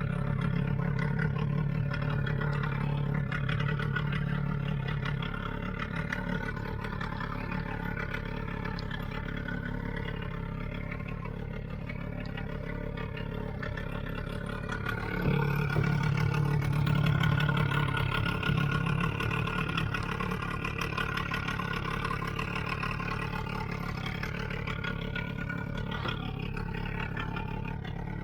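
Small two-horsepower outboard motor running steadily, pushing a mini boat along. It gets louder for about three seconds a little past the middle, as when the throttle is opened.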